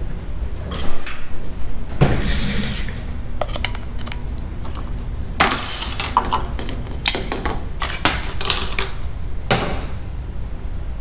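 Parts of a cut-open oil filter, a steel canister, spring and valve pieces, being handled and set down on a metal workbench: a string of irregular metallic clinks, knocks and short scrapes over a steady low hum.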